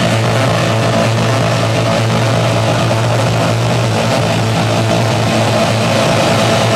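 Electronic dance music playing loud over a club sound system, in a breakdown where the drums drop out and leave a steady low bass drone under a noisy wash.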